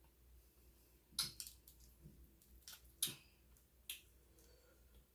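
Eating sounds from a seafood boil close to the microphone: scattered sharp clicks and wet smacks, three louder ones spread through.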